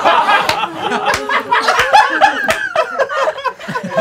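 Several people laughing together, their voices overlapping in bursts of chuckles and cackles.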